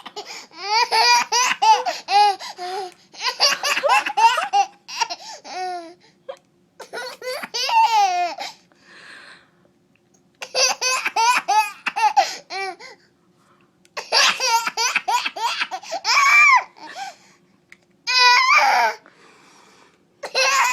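Baby laughing in about seven high-pitched bouts of rapid, breathy pulses, each lasting one to three seconds, with short pauses in between.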